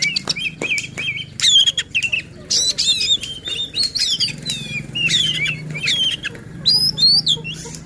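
Oriental magpie-robin (kacer) in full song: a fast, varied string of short whistled notes, sweeping up and down, mixed with sharp clicking chatter.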